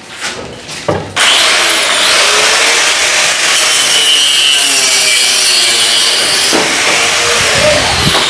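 A handheld electric power tool starts about a second in, after a couple of knocks, and runs loudly while cutting into wooden planks, its motor whine rising as it spins up. Near the end it is let off and the whine falls away as the motor winds down.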